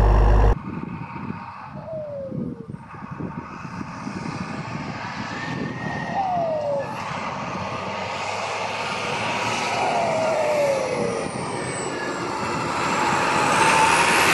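New Holland TS115 tractor's turbocharged diesel engine, loud up close for half a second, then heard driving closer, growing steadily louder. A turbo whistle falls in pitch three times, about every four seconds.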